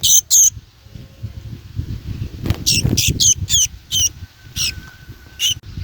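Small songbird giving short, sharp high-pitched calls: two at the start, a quick run of about seven in the middle, and two more near the end, over a low rustle of handling.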